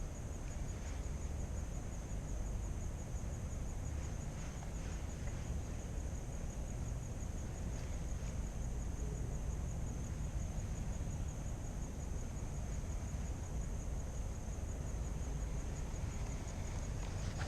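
Outdoor lakeside ambience: a steady high-pitched insect trill over a low rumble of wind on the microphone, with a few faint clicks in the first few seconds.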